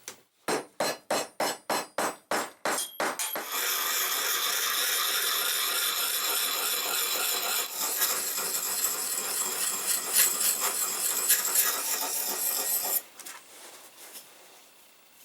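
A hammer strikes about nine times in quick succession, roughly four blows a second, then a steady rough rubbing or grinding noise runs for about nine seconds and cuts off suddenly.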